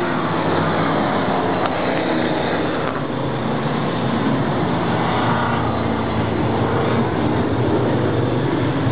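Several race car engines running around the speedway oval, a steady drone of overlapping engines whose pitch rises and falls as cars pass.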